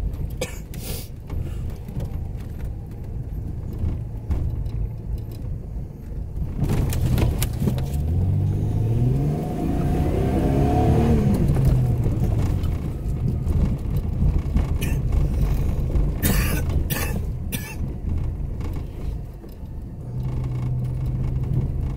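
4x4 vehicle engine running while driving. It revs up, rising in pitch, then falls back about halfway through. A few sharp knocks and rattles come later.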